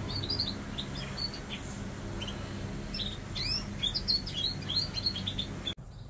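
Canaries chirping in quick, short notes over a low steady hum; both cut off suddenly near the end.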